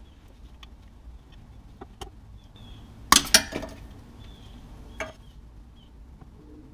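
An old transmission output-flange seal being pried from its bore with a long hooked seal pick: light scraping clicks, then a sharp metallic clatter a little after three seconds as the seal pops free, and a single click about five seconds in.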